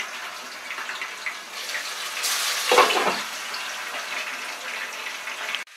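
Aar fish frying in hot mustard oil under a glass lid: a steady sizzle with fine crackling spatter, briefly louder a little over two seconds in, cutting off suddenly just before the end.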